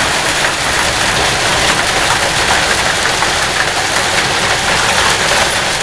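Heavy hail pelting a wooden deck and fence, a dense steady clatter of countless small hits.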